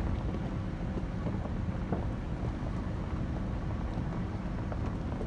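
Wind buffeting the microphone: a steady low rumble with a few faint ticks.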